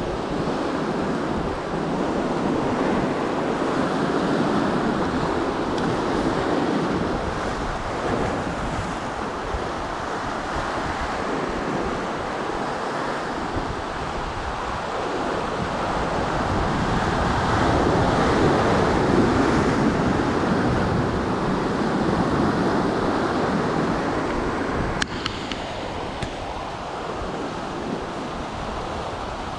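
Ocean surf breaking and washing around rocks, with wind buffeting the microphone; the wash swells and ebbs, loudest about two-thirds of the way through. A single sharp click near the end.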